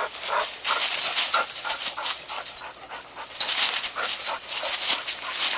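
Dog panting quickly and steadily, several breaths a second.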